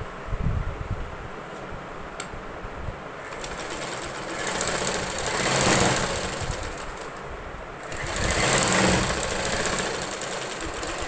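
Cloth rustling as hands gather, fold and smooth a bunched length of cotton fabric on a sewing-machine table, swelling twice, about halfway through and again near the end.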